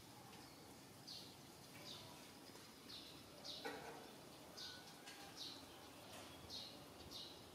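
Faint, short high-pitched chirps, about eight of them, roughly one a second, each sliding slightly down in pitch, over a quiet background hiss.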